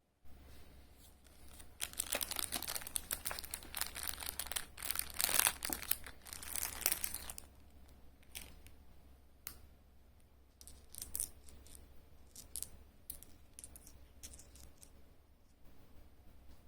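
Plastic packaging crinkling and tearing for several seconds, then scattered lighter rustles and clicks, over a faint low hum.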